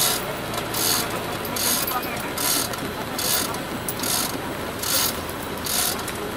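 Hand chain hoist hanging from a pole tripod, its chain rattling and pawl clicking in regular pulls a little more than once a second as it lifts a concrete utility pole.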